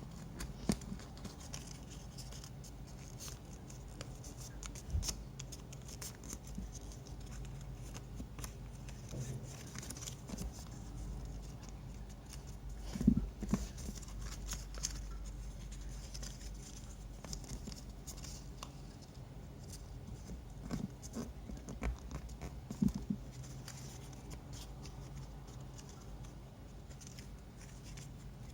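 Paper being handled and folded: small rustles, crinkles and clicks, with a few louder knocks, about a third of the way in and again about two-thirds in.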